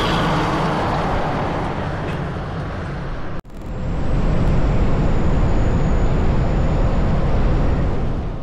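Road and wind noise from a vehicle driving at highway speed, steady and heaviest in the low rumble. It cuts out for an instant about three and a half seconds in, then comes back a little louder.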